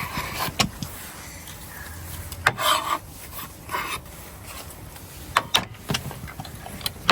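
Kitchen utensil scraping and rubbing, with scattered light clicks and a few louder scrapes from about two and a half to four seconds in, as chopped mint is worked into yogurt.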